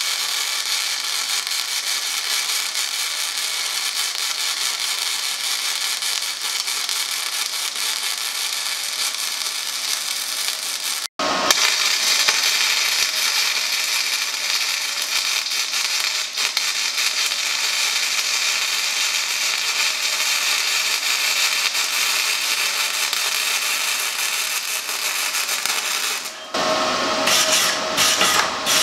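Electric arc welding on steel: the steady crackling hiss of the arc as a ring is welded onto a skid-steer bucket, with a brief break about 11 seconds in. Near the end the welding stops and a hand tool knocks and scrapes at the fresh weld.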